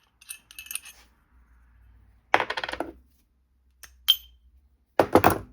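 Small metal parts clinking and rattling as drill bits are handled and swapped: a few light clicks, then a short clatter, a single ringing tink, and another brief clatter near the end.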